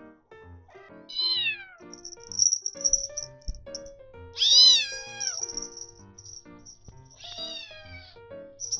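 Kitten meowing three times: high calls that each fall in pitch, the middle one the loudest and longest.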